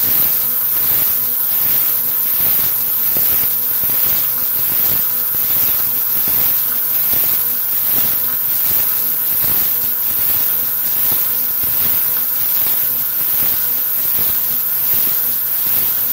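CNC milling machine end mill cutting metal along a trochoidal toolpath: a steady machine hum with a constant tone under it, and the cutting noise swelling and fading in a regular rhythm, roughly twice a second.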